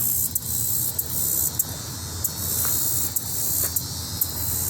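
Steady outdoor noise: a high hiss over a low hum, with faint soft ticks about every half second.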